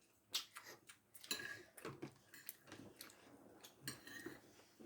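Faint, scattered clicks and taps of cutlery and dishes during a meal.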